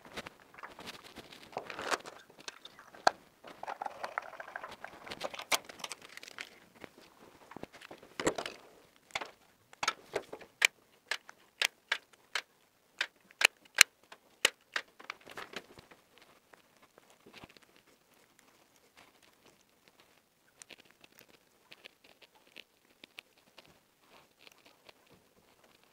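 Electrical installation handwork at a wall box: cable wires rustling and crackling as they are handled, then a run of sharp clicks, about two a second, as pliers work the wire ends, trailing off into faint fiddling.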